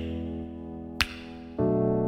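Instrumental background music: held chords with a sharp tick on the beat about a second in, and a new chord starting near the end.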